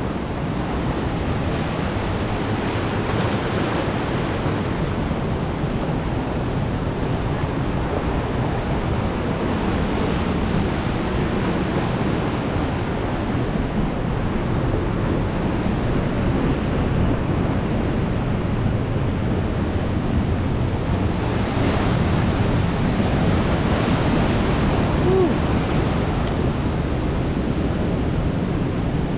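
Heavy surf breaking and washing over a rocky shore at high tide: a continuous rush of churning water that swells several times as bigger waves break. Wind buffets the microphone underneath.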